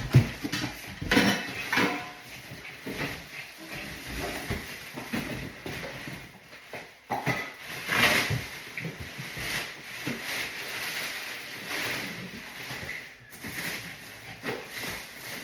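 Irregular clatter and knocks of hard objects being handled, with a sharper knock about eight seconds in.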